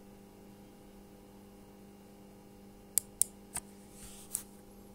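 Steady low mains hum from a 6P1 tube amplifier through a small full-range speaker, with no music playing. About three seconds in come three sharp clicks, then a brief rustle and one more click near the end.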